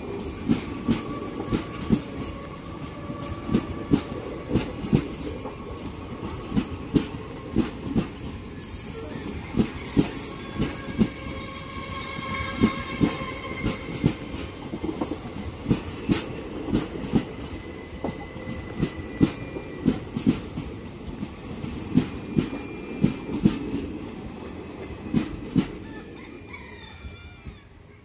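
Passenger coaches of an express train passing at speed: wheels clacking over rail joints in a steady repeating rhythm over a rolling rumble, with a thin wheel squeal in the middle. The sound fades away near the end as the last coach goes by.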